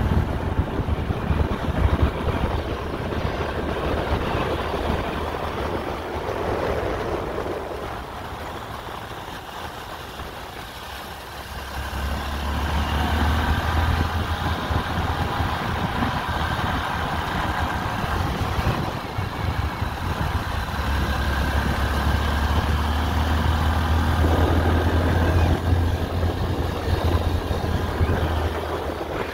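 Motor vehicle engines running, with road noise throughout and a steady low engine hum through most of the second half.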